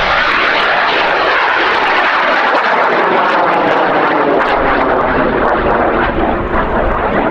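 Solid-fuel high-power rocket motor, an N2540, burning as the rocket climbs: a loud, steady rushing noise.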